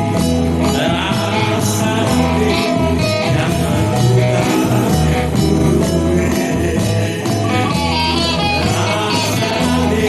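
Live band music with guitar over a steady bass line.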